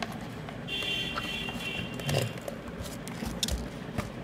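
Handling noise from multimeter test leads and a plastic multimeter case: scattered light clicks and rubbing. A brief high buzzing tone sounds for about a second, starting about a second in.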